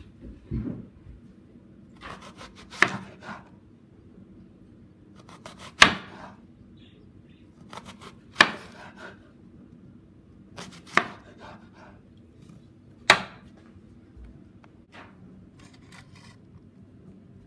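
A knife chopping fruit on a cutting board: a sharp chop every two to three seconds, with fainter knife and board clicks in between.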